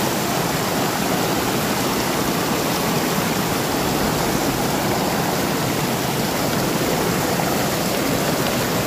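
River water rushing and churning over rocks in a small whitewater cascade, a steady unbroken rush close to the microphone.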